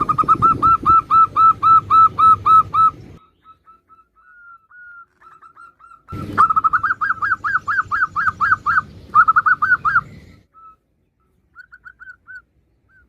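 Female zebra dove calling: a rapid run of short, repeated coos at about five a second, then a pause with a few faint notes, then a second run of coos.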